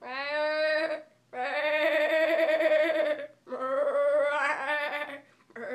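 A boy imitating a sheep's bleat with his voice: four "baa" calls in a row, the middle two long and wavering.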